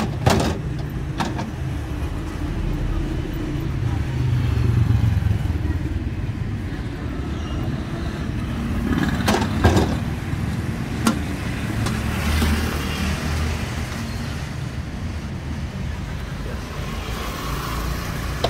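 Street traffic rumble that swells twice as vehicles pass, about four seconds in and again about twelve seconds in. A few sharp knocks come near the start and twice more about nine to eleven seconds in.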